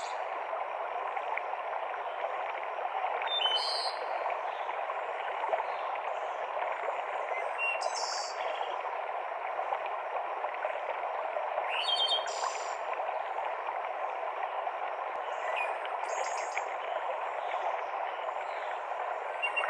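Steady rushing of a mountain stream cascading through forest, with short bird calls a few seconds apart.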